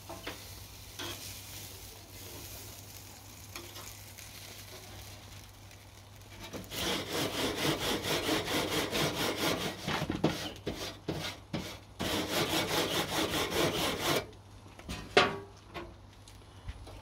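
Food sizzling on a barbecue grill, then about seven seconds in a louder stretch of rapid scraping and rubbing at the grill that lasts about seven seconds, followed by a single sharp knock.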